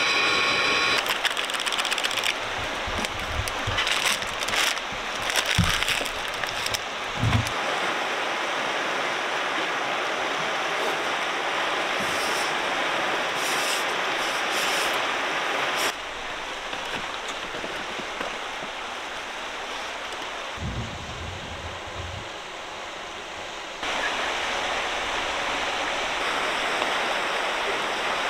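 Steady rush of river water flowing over rapids. A cordless blower's whine cuts off about a second in, and a few low knocks come in the middle.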